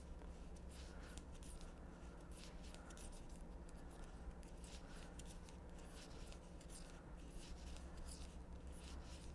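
Hand knitting on circular needles: faint, irregular light clicks of the needle tips and the rustle of wool yarn being drawn through as stitches are knit across.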